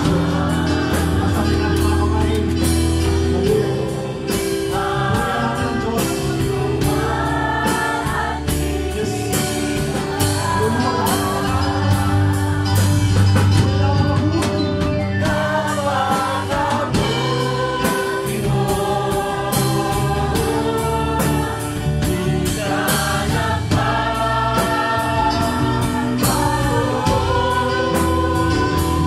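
Live worship band playing a gospel song: a singer on the microphone leads a group of voices singing together, over electric guitar and a drum kit keeping a steady beat.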